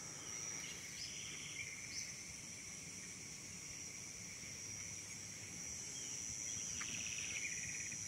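Insects droning steadily at one high, even pitch, with a few faint short chirps over the top.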